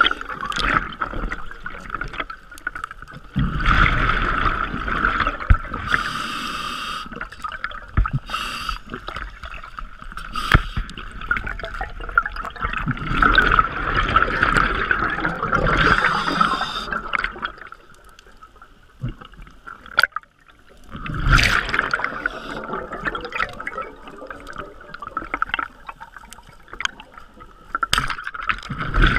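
Scuba diver breathing through a regulator underwater: hissing inhalations and gurgling bursts of exhaled bubbles that swell and fade every several seconds.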